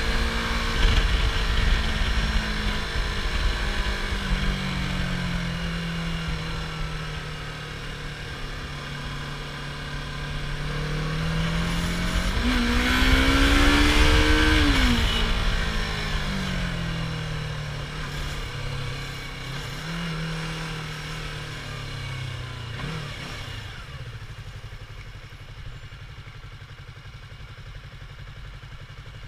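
Yamaha R25's 249 cc parallel-twin engine with its stock exhaust running, its note shifting up and down in steps. It swells to its loudest about halfway through with a quick rise and fall in pitch, then fades away.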